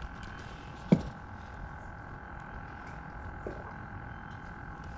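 A steady two-pitched chorus of night animals, with one sharp knock about a second in.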